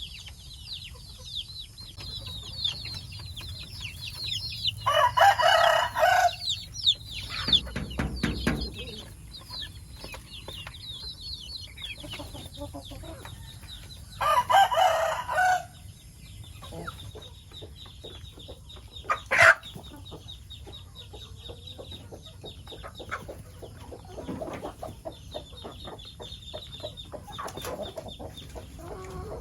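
Backyard chickens clucking while a rooster crows twice, about five and fourteen seconds in, each crow lasting about a second and a half and the loudest thing heard. High, quick chirping runs through the rest, with a single sharp click near twenty seconds.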